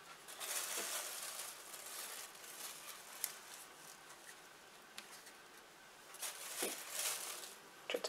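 Faint crinkling and rustling of a thin plastic bag and dry onion skins as onions are handled and set into a plastic tray, with a light click about three seconds in.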